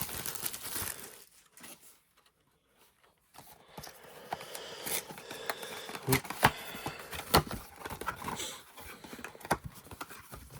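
Plastic wrapping crinkling and tearing as a Pokémon card booster box is unwrapped and opened, with scattered sharp clicks and taps of cardboard being handled. There is a short lull about two seconds in.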